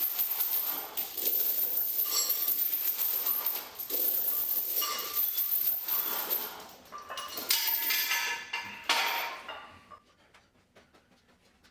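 Metal gym equipment clinking and jangling with ringing metallic tones, stopping about ten seconds in.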